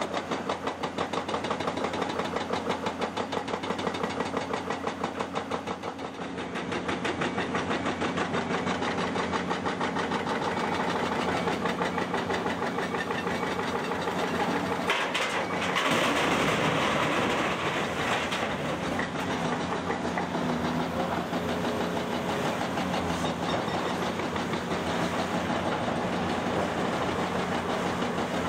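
Heavy diesel excavator engine running steadily with a rapid, even firing pulse. About fifteen seconds in it revs up louder and brighter for a few seconds, then settles back to its steady run.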